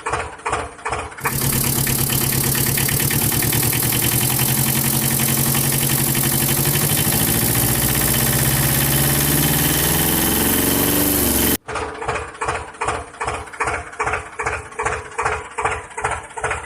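A small motor-driven machine running. It starts with a pulsing chug of about four to five beats a second. About a second in it switches to a loud, steady, fast-running hum whose pitch wavers near its end. It cuts off abruptly and the rhythmic chugging of about three to four beats a second resumes.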